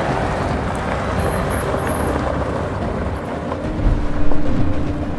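Off-road 4x4 vehicle driving on a gravel track: the engine runs under the noise of tyres on loose stones, getting louder about four seconds in.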